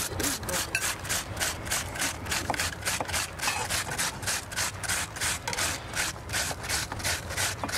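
Onion being rubbed on a sharp hand grater, a steady run of rasping strokes at about four a second.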